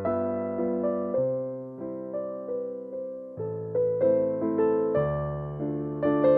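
Background music: soft piano chords, each note struck and fading, over a slow bass line.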